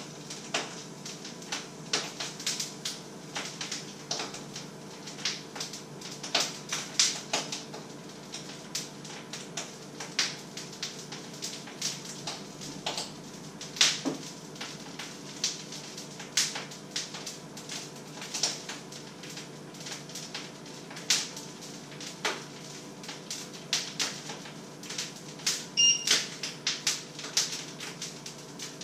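Food crackling and popping in a pan on an electric stove: irregular sharp pops, one to three a second, over a steady electrical hum. A short high beep sounds near the end.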